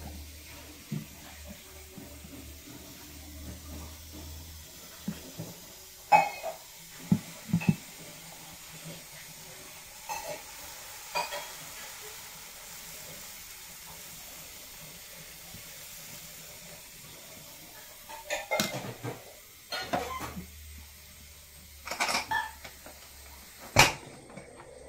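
Metal pots, pan and utensils clinking and clanking every few seconds over a low, steady sizzle of dosa batter cooking on a hot oiled dosa pan. A run of louder clanks comes near the end as the pressure cooker is handled.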